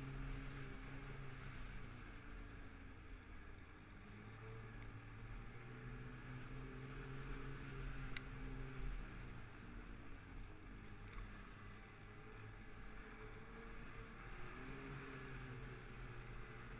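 Snowmobile engine running at trail speed, its pitch rising and falling a few times with the throttle.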